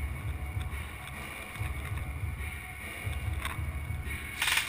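Low rumbling noise on the camera's microphone. Near the end a short, sharp rattling burst cuts in, typical of airsoft gun fire.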